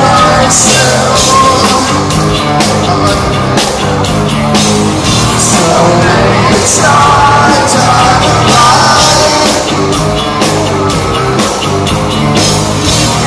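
Hard rock band playing live through an arena PA: drums, electric guitars and a singing voice, loud and continuous.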